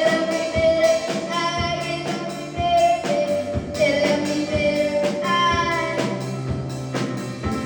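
A female vocalist singing a pop song live over backing music with drums, holding long notes.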